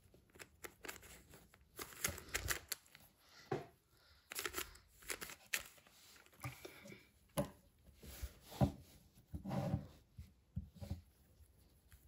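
Unofficial Lego-brick Rubik's cube being turned by hand: irregular clicks and short plastic rattles and scrapes as its layers twist, the sharpest click about eight and a half seconds in.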